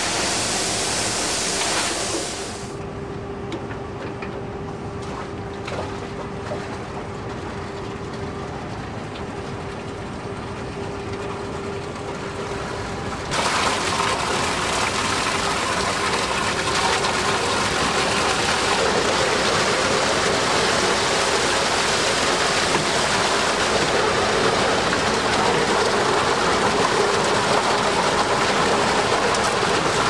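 Big Brute industrial vacuum cleaner running, a steady motor hum under a loud rush of air. The rush drops away after a couple of seconds and comes back sharply a little before halfway through.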